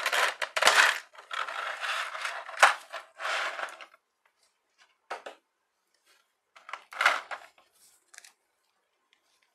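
Clear plastic blister tray crackling and crinkling as an action figure is worked out of it. The crackling is dense for about four seconds, then gives way to a few separate plastic clicks and taps.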